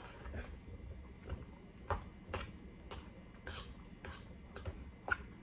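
Eating a grilled chicken salad: a fork clinking and scraping in a bowl, with chewing, heard as about a dozen irregular sharp clicks.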